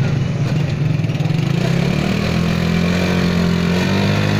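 Motorcycle engine of a Qingqi motorcycle rickshaw running under load as it pulls the rickshaw through soft mud, its note settling to a steady pitch about halfway through.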